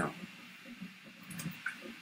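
Computer mouse clicking while menus are worked: one sharp click at the start and a few faint ticks about a second and a half in, over low room noise.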